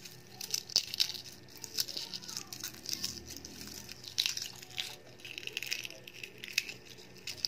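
Shell of a hard-boiled egg being cracked and peeled off by hand: irregular crackling and crinkling as the shell fragments and membrane tear away.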